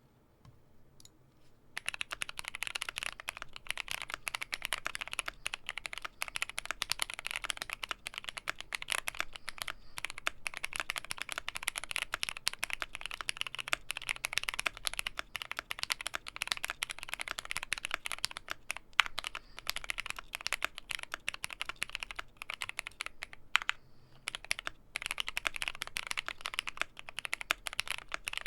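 Fast continuous typing on a Glorious GMMK Pro mechanical keyboard with broken-in linear Cherry MX Black Hyperglide switches on a PC plate, a dense run of keystroke clacks that starts about two seconds in, with a couple of brief pauses.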